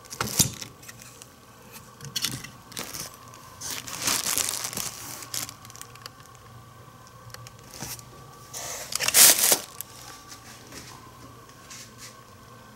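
Cardboard shipping box and plastic packing wrap crinkling as coilover shocks are moved and lifted inside the box. The sound comes in several short bursts, the loudest about nine seconds in.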